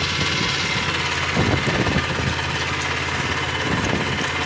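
A small engine aboard a fishing boat running steadily at idle, with water splashing as a net is worked through it.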